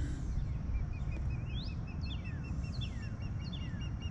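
Birds calling: a run of short repeated chirps, about three a second, with a few longer swooping whistles in the middle, over a steady low rumble.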